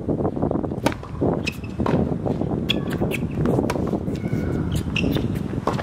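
Tennis serve and rally on a hard court: sharp pops of racket strings hitting the ball and the ball bouncing, the first about a second in and then every half second or so, with short high shoe squeaks, over a steady low background rumble.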